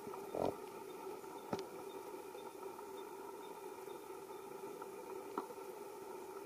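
Steady outdoor background drone made of several even tones, broken by three short clicks, the loudest about half a second in.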